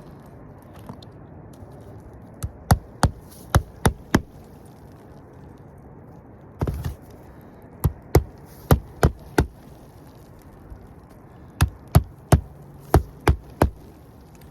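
Hammer driving roofing nails: three runs of five to seven sharp blows, about three a second, with a short scrape between the first two runs.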